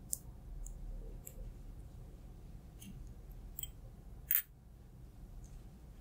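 Scattered soft clicks and taps from hands handling a small ceramic bowl, about six in all, with one sharper click a little past four seconds in.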